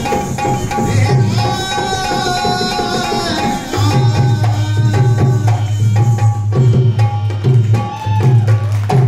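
Live Rajasthani folk music: a hand drum plays a quick rhythm under a held, gently wavering melody line. About four seconds in the drumming becomes denser and louder.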